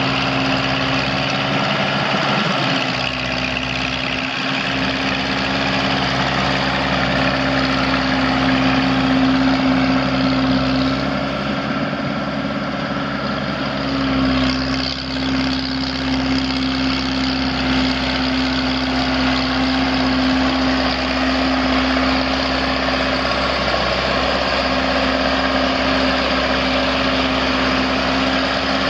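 John Deere 3020's four-cylinder gas engine running steadily.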